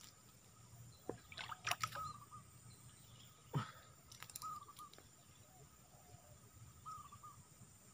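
Small splashes and drips in shallow water as hands and legs move through it, in a few short clusters. A bird repeats a short wavering call every two to three seconds.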